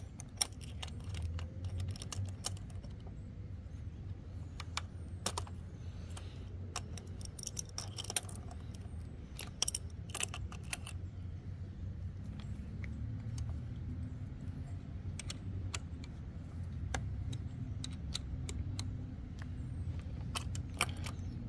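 Metal hand tools clicking and clinking at irregular moments: an adjustable wrench being handled and set, then a wrench and an Allen key working the bracket screws during retightening. A low steady rumble runs underneath.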